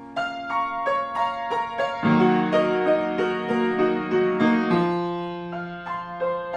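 Background piano music: a run of single struck notes, with lower notes coming in about two seconds in.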